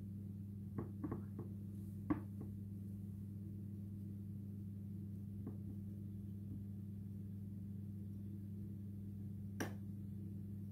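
A metal spoon clicking lightly against a metal baking tray as a crumbly topping is pressed down, a few soft clicks in the first couple of seconds and one more near the end, over a steady low electrical hum.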